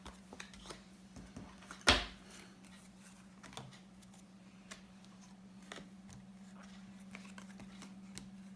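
Scattered light clicks and taps, with one louder sharp knock about two seconds in, over a steady low electrical hum.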